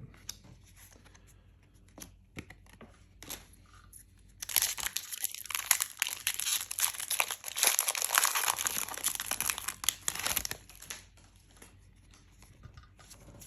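Foil wrapper of a Disney Lorcana booster pack being torn open and crinkled: a dense crackling that starts about four and a half seconds in and lasts about six seconds, with a few light clicks of handled cards before and after.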